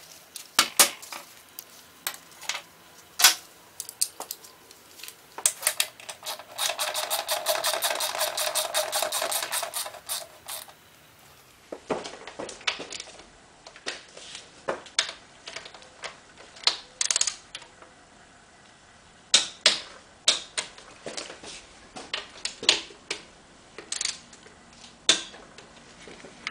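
Hand socket ratchet clicking as the transmission frame bolts are snugged up: scattered single clicks and short runs, with one fast, even run of ratchet clicks from about six to ten seconds in.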